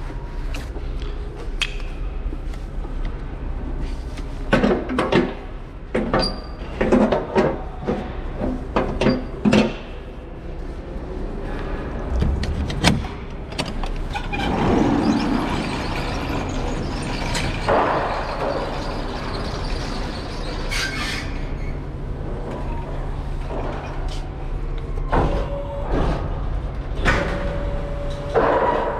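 Sectional loading-dock door being unlatched and pushed up, a rattling rumble as it runs up its tracks, over a steady low hum. A quick run of knocks and clacks comes before it.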